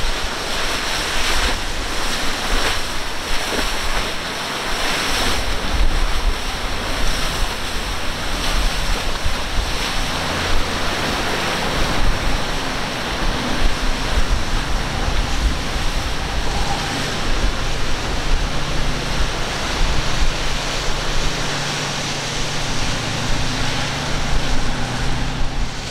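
Waves breaking and surf churning in a rough inlet, with wind buffeting the microphone. From about halfway through, a low steady drone from the engines of a sportfishing boat running through the swells sits under the surf.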